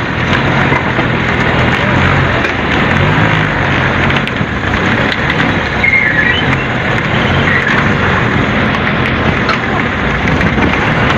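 Fishing boat's engine running steadily at a constant pitch, with the wash of water and deck noise around it.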